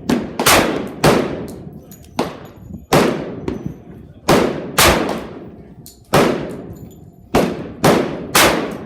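A .45 ACP semi-automatic pistol fired about eleven times at an uneven pace, some shots half a second apart and others over a second apart. Each shot is a sharp crack with a short fading echo.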